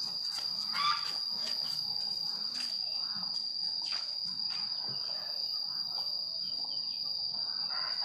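Insects droning: one steady, high-pitched continuous tone, with a brief louder sound about a second in.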